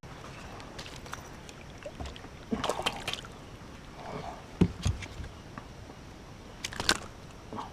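Knocks, rattles and water splashes in a fishing kayak as a freshly hooked fish is brought in, in three short bursts about two seconds apart, the loudest a low thump near the middle.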